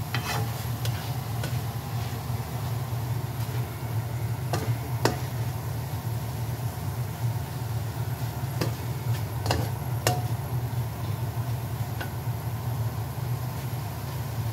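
Papaya leaves stir-frying in a wok: a spatula knocks and scrapes against the pan every second or few, over a light sizzle. A steady low hum runs underneath.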